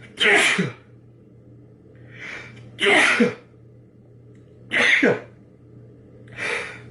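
A man sneezing three times in a rapid fit, about two seconds apart, each sneeze set up by a short, sharp in-breath.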